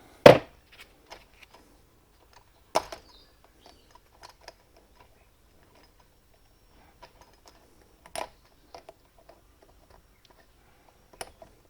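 Sparse small clicks and knocks of metal parts being handled while a split pin is fitted to a brushcutter's gearbox head, with four louder knocks spread out among faint ticks.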